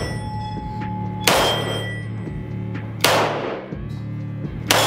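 Stechkin APS machine pistol firing 9×18 mm Makarov rounds one at a time: three shots about a second and a half apart, each with a short ringing tail. Background music plays underneath.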